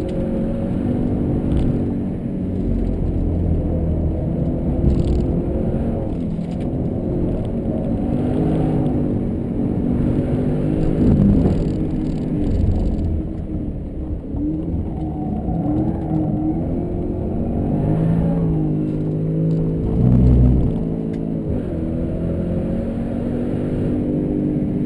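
Jaguar XFR-S's supercharged 5.0-litre V8 driven hard, its pitch repeatedly climbing and falling as it accelerates, shifts and slows.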